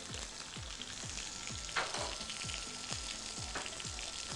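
Basa fish fillet frying in hot olive oil in a pan: a steady sizzle, with a faint high steady tone joining about a second in.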